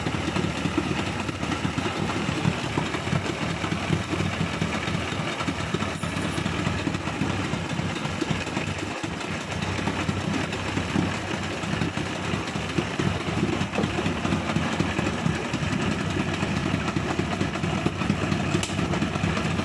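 Yamaha Enduro 40 hp two-stroke outboard motor running at a steady, even speed.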